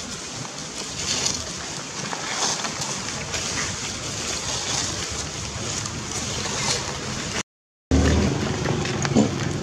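Dry leaf litter rustling and crackling under footsteps over a steady outdoor hiss; the sound cuts out briefly near the end, then a low steady motor hum comes in.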